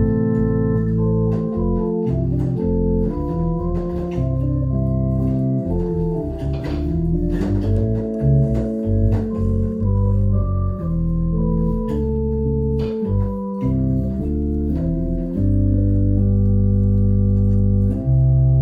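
Theatre-style home organ playing a hymn in held chords that move every second or so, settling into a long sustained chord for the last few seconds, briefly released and sounded again near the end.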